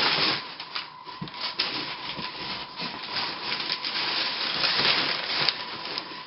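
Cardboard rubbing and scraping against cardboard as a long airsoft gun box is slid and lifted out of its shipping carton, with crumpled packing paper rustling, in irregular scrapes and rustles.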